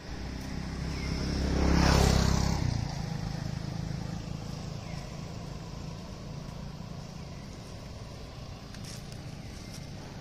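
A motor vehicle passes close by on the road. Its sound swells to a peak about two seconds in, then fades, leaving a steady background.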